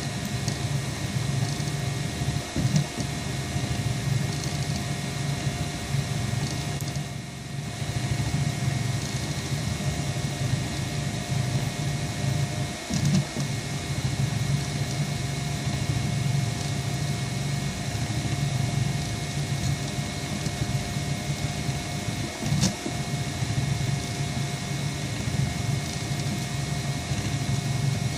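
Self-built delta 3D printer running a print: a steady mechanical hum from its stepper motors and cooling fan, with a brief louder whir about every ten seconds.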